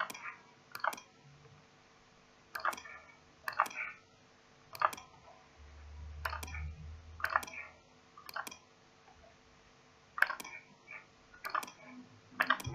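Computer mouse button clicks, some single and some in quick pairs, spaced irregularly about a second apart.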